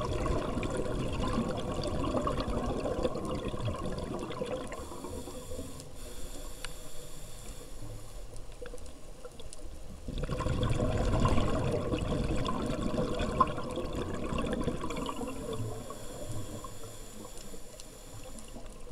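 Scuba diver breathing through a regulator underwater. There are two long exhalations of bubbling, the first at the start and the second about ten seconds in. Each is followed by a quieter stretch with a thin hiss of inhalation.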